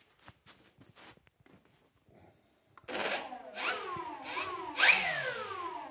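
Twin electric motors and propellers of an Avios Bush Mule RC plane being blipped up four times about three seconds in. Each blip is a rising whine that spools back down, and the fourth is the highest and winds down near the end.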